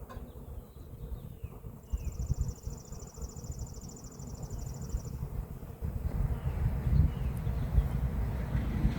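Carniolan honeybees buzzing from a package being installed, under a low rumble on the microphone that grows louder from about six seconds in. A high, fast trill runs for about three seconds near the middle.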